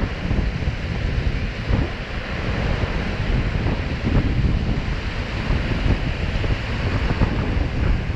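Ocean surf breaking and washing through the shallows in a steady hiss, with wind buffeting the microphone in rough low gusts.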